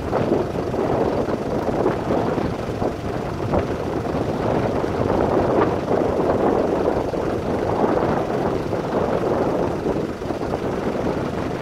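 Wildfire burning in strong wind: a steady rushing noise with scattered crackles.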